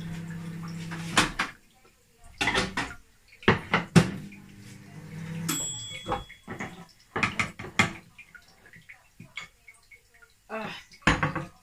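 Dishes and pots clattering with repeated knocks, over a steady appliance hum that stops about five and a half seconds in with a short high beep.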